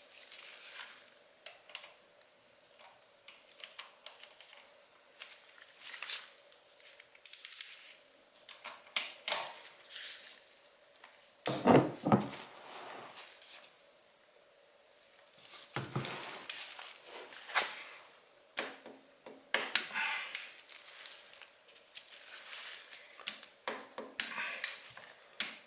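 Metal hand tools clinking and clicking: a hex socket on an extension and ratchet being fitted and worked on an engine drain plug, with one louder knock about halfway through. A faint steady hum sits under it.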